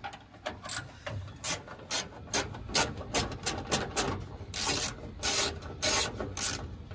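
Hand socket ratchet clicking in short back-and-forth strokes as it loosens the small 8 mm nuts on a starter solenoid, with longer runs of rapid ratcheting near the end.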